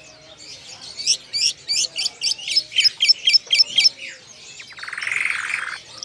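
Caged songbird calling: a quick run of about a dozen sharp, high chirps, each falling in pitch, at roughly four a second, then a harsh buzzing rattle about a second long near the end.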